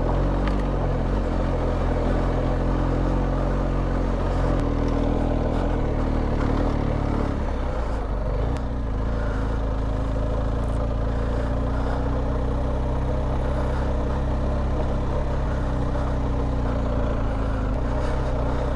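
BMW R1250GS boxer-twin engine running while the motorcycle is ridden, its note changing about four and a half seconds in and again about eight seconds in.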